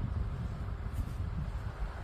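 Cecotec EnergySilence 6000 PowerBox floor fan running, its air making a low, uneven rumble on the microphone, with a light click about a second in.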